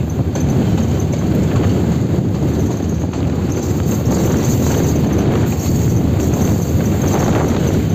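Diesel locomotive running light along the track: a steady running noise with irregular clatter of the wheels on the rails.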